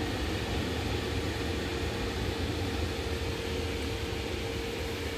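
Electric blower fan running steadily to keep an indoor inflatable bounce house inflated: an even whirring rush with a steady hum.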